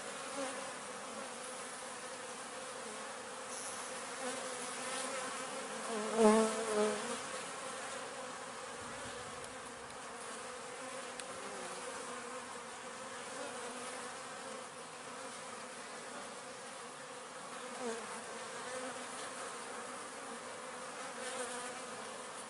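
Honey bees buzzing in a steady hum at an open hive, the colony calm. A louder buzz swells and fades about six seconds in.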